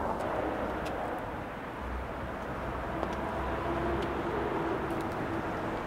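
Steady city street background noise with distant traffic, and a faint steady hum in the second half.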